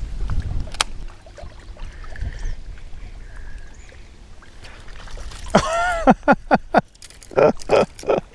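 Wind buffeting the microphone with a single sharp click, then about five and a half seconds in a person's voice calls out with a falling pitch, followed by a quick string of short vocal bursts.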